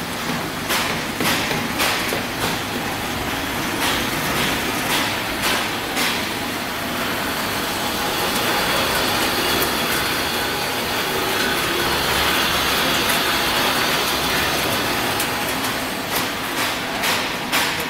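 Popcorn production machinery running: a stainless-steel rotating drum turning with popcorn tumbling inside it. It makes a steady rushing noise, with regular clacks roughly every half second for the first few seconds and again near the end, and a smoother rush in between.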